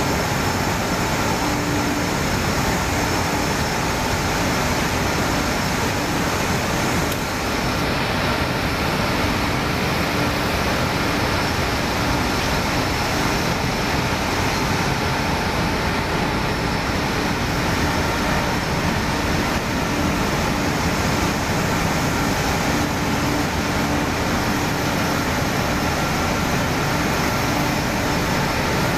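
Cotton waste recycling machine running: a row of multi-cylinder fibre-opening units driven by electric motors through V-belts and chains, making a steady, dense mechanical noise with a few faint steady tones in it.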